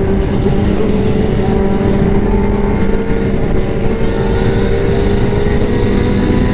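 Yamaha R1's inline-four engine running at a steady speed, its pitch rising slightly a little over a second in, under heavy wind rush on the helmet microphone.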